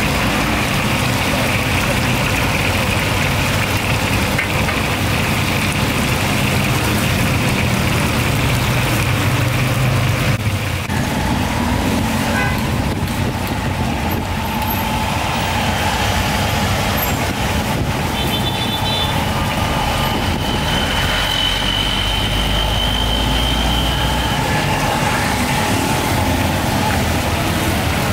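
Busy street noise dominated by motor traffic running steadily, with a low rumble swelling for a few seconds in the last third.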